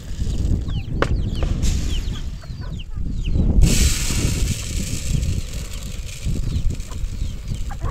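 Green gram beans poured by hand into a basin to winnow them, the falling grains pattering and ticking against it. Wind buffets the microphone with a steady low rumble, and there is a louder rush about halfway through.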